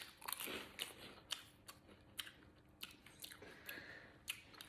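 A person crunching and chewing Monster Munch pickled onion corn snacks: faint, irregular crunches.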